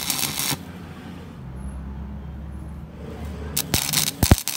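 Electric arc welding on a generator crankshaft: the arc crackles loudly and stops about half a second in. A steady low hum follows, then the arc crackles again, with a few sharp snaps, for about a second near the end.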